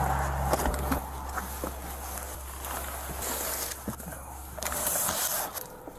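Low, steady hum of an idling vehicle engine, with rustling, clicks and knocks from body-worn camera and clothing movement as the cab is searched. The hum cuts off about five seconds in.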